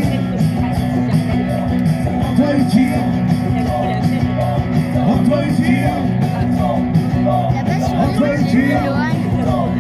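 Live music from two acoustic guitars strummed together, with a voice singing over them.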